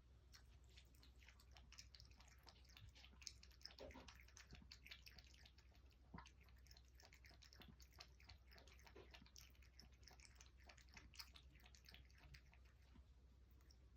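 Faint, quick, irregular wet clicking from a cat's mouth, with a few stronger ticks about four and six seconds in, over a low hum.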